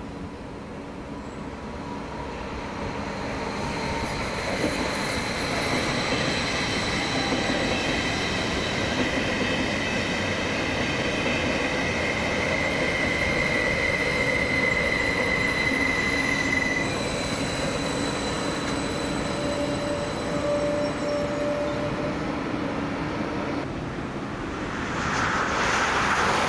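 A train passing through a station at speed: rolling wheels on rail with a steady high-pitched squeal and ringing, building up over the first few seconds and holding, with a brief dip near the end before it swells again.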